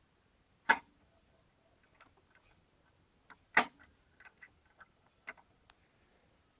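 Sharp metallic clicks from a Motor Sich walk-behind tractor's clutch as the clutch lever is worked: two loud clunks about three seconds apart, with lighter clicks between them. With the lever pulled, the primary shaft slides forward, because the bolts on its bearing retainer plate have worked loose and the clutch no longer disengages.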